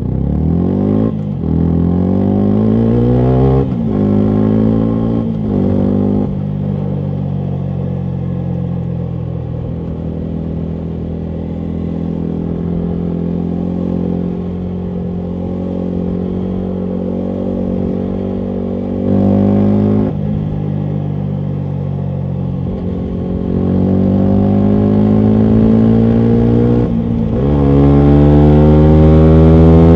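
Yamaha MT125's single-cylinder 125 cc engine through a full Akrapovic exhaust, pulling up through the gears with three quick upshifts, each a climb in pitch then a drop. It then holds a steady cruise and accelerates hard again near the end, with one more shift and its loudest climb last.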